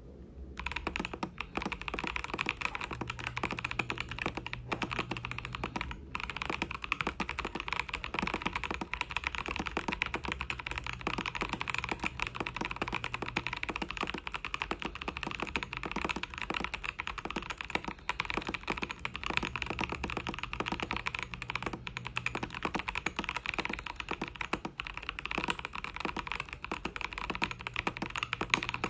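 Continuous typing on a Keychron K2 V2 mechanical keyboard fitted with Gazzew Boba U4T 62g tactile switches lubed with Tribosys 3203, Durock V2 stabilizers, an aluminium plate and foam dampening in the case and under the plate. The rapid key strokes start about half a second in and run on without pause.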